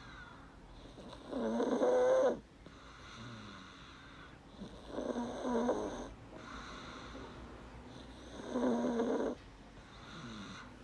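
A young boy snoring in his sleep: three loud snores about three and a half seconds apart, with softer breathing between them.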